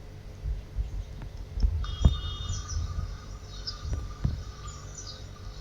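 Recorded bird calls played back faintly: high chirps and short whistled notes that begin about two seconds in. Low thumps come before them and once more near the end.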